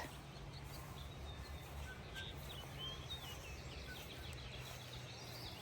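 Birds chirping faintly in scattered short high chirps, over a low steady hum.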